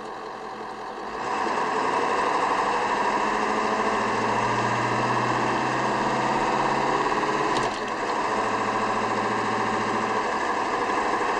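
Ford 7.3L Powerstroke V8 turbo diesel pulling the F-250 away in four-wheel high, rising to a loud, steady, rough drone about a second in. It dips briefly about seven and a half seconds in, then carries on.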